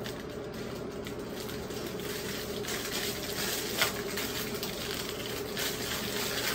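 Steady rushing background noise with a low hum, and a few soft crinkles of plastic packaging being handled.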